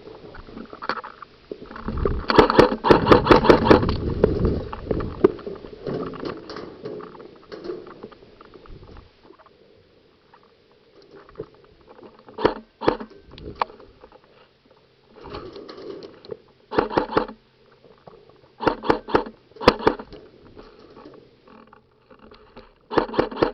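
Airsoft guns firing in rapid bursts of clicks. The longest and loudest burst is a couple of seconds in, and shorter bursts follow several times later.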